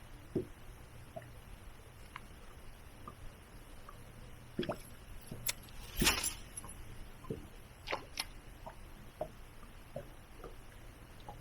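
Scattered light knocks and clicks of handling in a small boat, with one louder knock about six seconds in, over a faint steady low hum.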